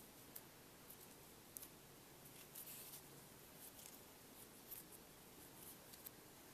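Near silence, with faint scattered ticks and rustles of fingers working yarn into a loop for the next round of crochet.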